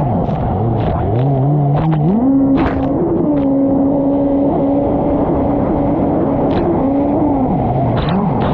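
Small engine revving: its pitch falls at the start, climbs in two steps, holds steady at high revs for about five seconds, then dips and climbs again near the end. Short clicks and knocks are scattered through it.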